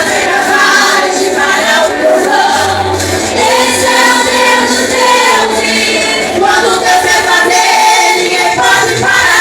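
A group of voices singing a Pentecostal worship song together, choir-style, with music behind them.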